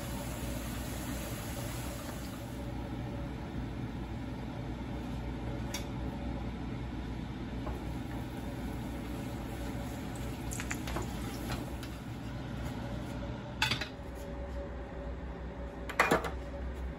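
Tortillas frying in hot oil in a skillet, a steady sizzle over a low hum, with metal tongs clacking against the pan a few times. There is a louder knock near the end.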